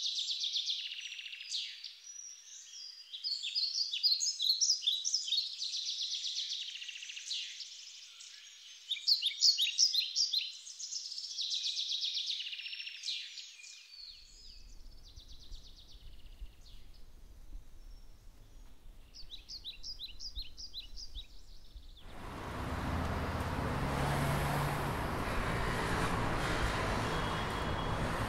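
Several songbirds singing a busy mix of quick chirps and trills, loudest in the first half and thinning out later. About 22 seconds in, the birdsong cuts off and is replaced by the steady rumble of city street traffic.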